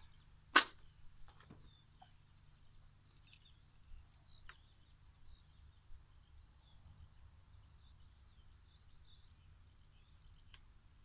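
Cable knife working the plastic outer sheath of a red power cable: one sharp, loud click about half a second in, then faint small clicks and scrapes, and another sharp click near the end. Birds chirp faintly in the background.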